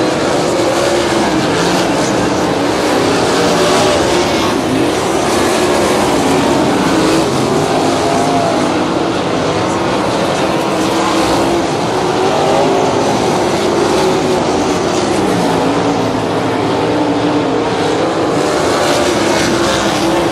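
Non-winged 360 sprint cars racing on a dirt oval: several V8 engines running hard at once, their pitch rising and falling as they go down the straights and back off for the turns.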